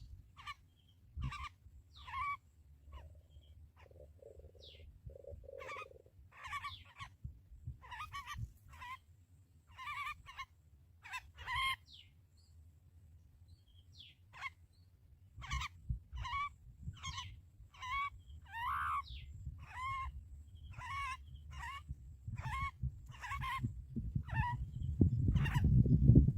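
A bird calling in short, repeated chirps, about one or two a second, with a brief pause partway through. A low rumble runs underneath and grows loud near the end.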